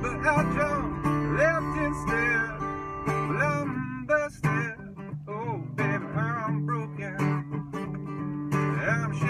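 Acoustic guitar strummed and picked, with a man singing a blues song over it.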